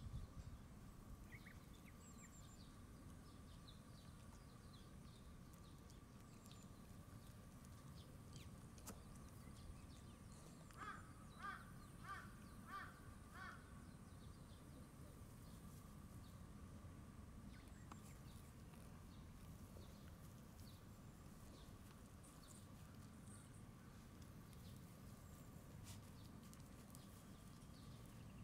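Near silence: faint outdoor ambience with scattered faint chirps. About halfway through, an animal gives a run of five short calls, roughly two a second.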